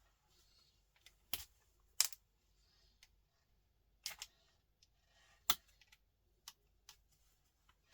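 Sharp clicks and clacks of small metal scrap parts from a switch being handled and worked at a bench, about half a dozen, the loudest about two seconds in and again about five and a half seconds in.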